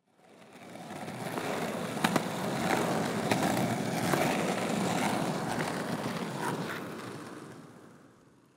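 Skateboard rolling on pavement: a steady rumble that fades in and out, with a few sharp clacks about two to four seconds in.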